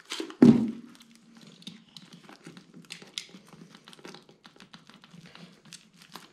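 Clear plastic film crinkling and crackling in small irregular clicks as it is cut with a utility knife and peeled off a hardened resin shell, with one low thump about half a second in.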